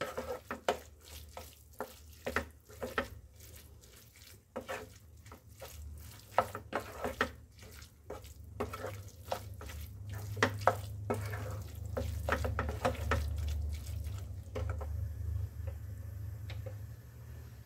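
Flat spatula stirring and scraping minced chicken and peas in a non-stick kadai as it fries, with repeated quick scrapes and taps against the pan. A steady low hum runs underneath, and the stirring stops near the end.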